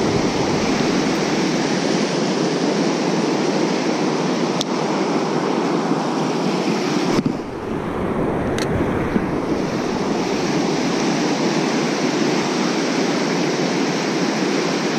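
Fast river rapids rushing steadily, heavy spring current. The rushing dips briefly about halfway, and there are two small clicks, one before and one after the dip.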